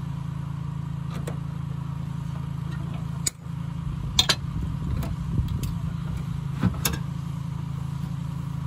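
Sharp clicks and knocks of hard plastic parts being handled as a washer fluid reservoir and pump are worked loose in a pickup's engine bay, over a steady low hum. The clicks come in a few clusters after the first three seconds.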